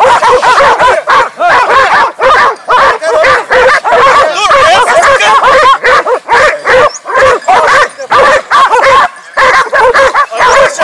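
A pack of hunting dogs barking and yelping at a shot wild boar, many voices overlapping without a break; the dogs are holding the wounded boar at bay.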